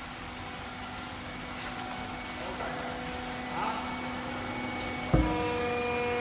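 Wheelbarrow edge curling machine running with a steady hum while its rollers curl the metal rim of a wheelbarrow tray. A sharp clunk about five seconds in, after which the hum becomes louder and changes pitch.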